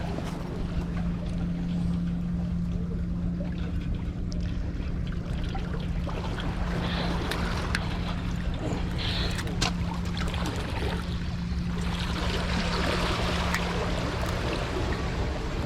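Outdoor seaside ambience of wind and water noise with a steady low hum underneath throughout, a few faint clicks, and a louder rush of hiss about twelve seconds in.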